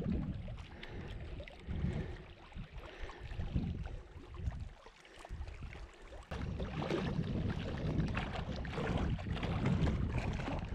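Wind gusting against the microphone over choppy lake water at the shore, in uneven low rumbling gusts. The wind drops to a lull about four to six seconds in, then picks up again and holds steadier.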